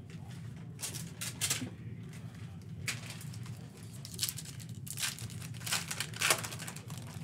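Foil basketball-card pack crinkling and being torn open by hand, in several short bursts, the loudest near the end.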